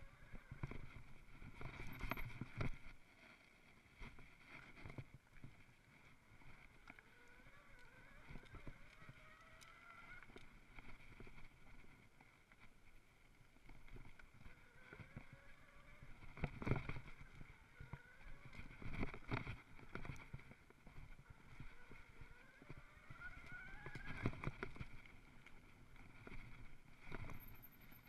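Mountain bike rolling over a rough dirt trail, rattling with knocks from bumps and roots, while a faint whine rises in pitch several times as the bike speeds up.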